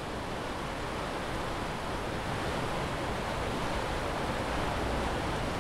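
Steady rushing ambience of waves on open water, growing slightly louder.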